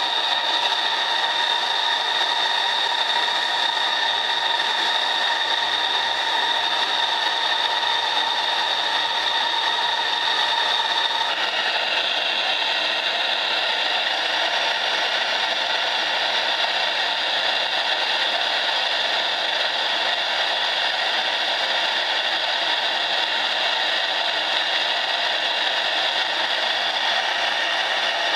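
Saito T2DR twin-cylinder model steam engine running under steam from its gas-fired boiler: a steady whirring hiss with a few held tones, whose tone shifts about eleven seconds in.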